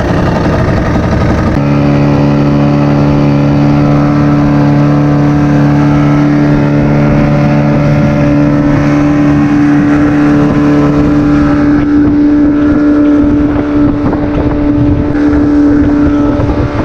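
Fishing boat's engine running under way; a rough, uneven start settles about a second and a half in into a steady, even engine note.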